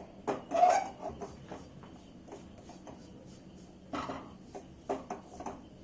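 A stirring utensil scraping and knocking against a kadhai while gram flour roasts in a little oil. There is a cluster of scrapes and taps in the first second, a quiet spell, then a few more taps near the end.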